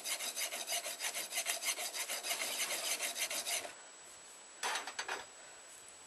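Metal file rasping on a steel knife blade in quick, even strokes that stop abruptly about three and a half seconds in, followed by one brief scrape about a second later.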